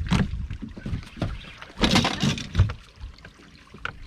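Knocks, thumps and rustling on a small fishing boat, with a louder rushing, noisy burst about two seconds in.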